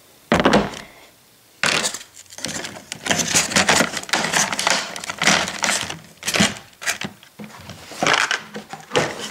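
Stiff clear plastic packaging being handled and pulled away, with a knock about half a second in, then dense, irregular crinkling and clicking of the plastic for most of the rest.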